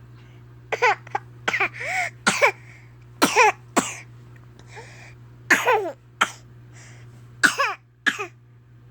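Repeated fake coughing: short, high-pitched coughs falling in pitch, in clusters of two or three with brief pauses between.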